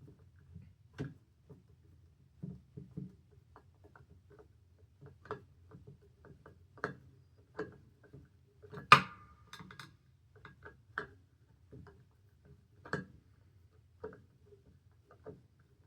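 Irregular small clicks and taps of hands handling a metal fire alarm horn and its parts, with one sharper, louder knock about nine seconds in, over a faint low hum.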